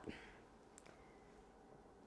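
Near silence: room tone, with one faint tick a little under a second in.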